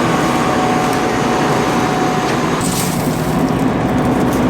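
Combine harvester running with its threshing and chopper systems engaged, a steady loud mechanical rush with a faint hum in it.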